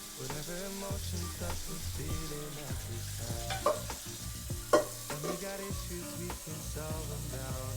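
Food frying in a pan with background music playing over it. Two sharp knocks a little past the middle, the second the louder.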